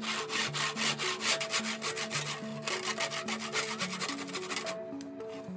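Hand saw cutting across a cherry board in quick, even back-and-forth rasping strokes, stopping near the end.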